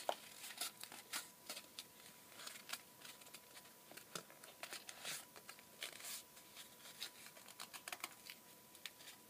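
Faint rustling and crinkling of a thin cardboard toilet-paper tube being wrapped around a pencil by hand, in short irregular scrapes and clicks.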